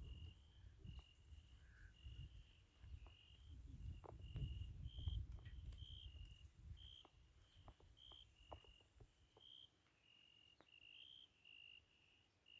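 Faint cricket chirping: short, even chirps repeating about once or twice a second, with scattered light clicks and a low rumble that fades after the first half.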